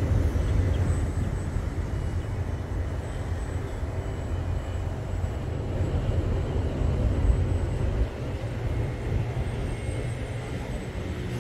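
Steady low rumble of wind on the microphone, with a faint high whine from the small RC plane's motor flying overhead.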